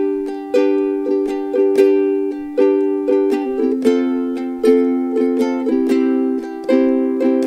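Solo ukulele strumming chords in a steady rhythm, each strum ringing and dying away before the next.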